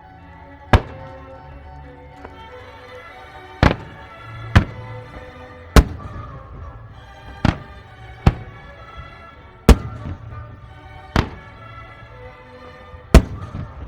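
Firework shells bursting in the air: nine sharp bangs at uneven intervals, with music playing underneath.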